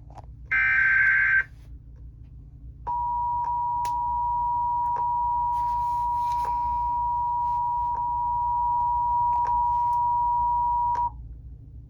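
Emergency Alert System signal: a short burst of SAME header data tones, then the two-tone EAS attention signal, a steady dual tone just under 1 kHz held for about eight seconds before it cuts off. A few faint clicks and a low hum run underneath.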